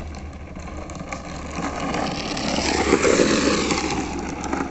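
Drift trike rolling past at speed, its hard plastic rear wheels grinding on the asphalt. The noise builds to a peak about three seconds in, then fades as it goes by.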